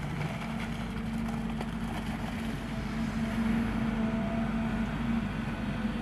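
Diesel engine of heavy earthmoving machinery running steadily, with an even low hum.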